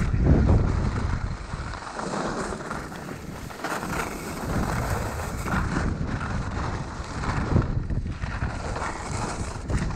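Wind buffeting a GoPro Hero 6's microphone while skiing downhill, with the skis scraping over packed snow. The wind swells every second or two, loudest about half a second in.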